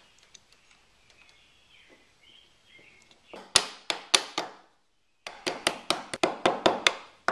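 Sharp metallic clicks and clinks of drum brake hardware (self-adjuster, springs and shoe) being handled and fitted together. Faint ticks at first, a cluster of clicks about halfway through, then a fast run of about six clicks a second near the end.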